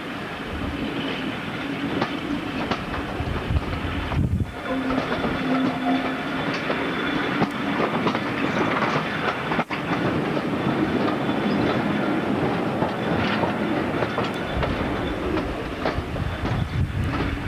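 Diesel locomotive hauling a passenger train, its engine working hard under heavy exhaust, heard from an open carriage window along with the carriage wheels clattering over the rail joints.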